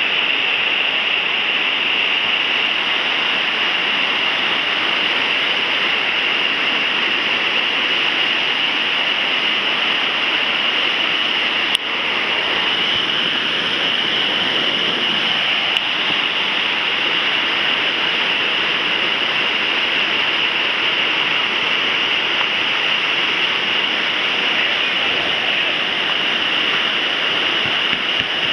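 High, brown river water pouring over a weir in spate and churning in the stopper below: a steady, loud rush of water, with two short clicks about twelve and sixteen seconds in.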